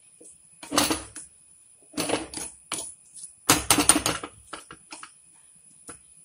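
Metal spoon scraping and clattering against a small frying pan, stirring diced coconut frying in ghee: three bursts of quick clicks and scrapes, then a few single taps.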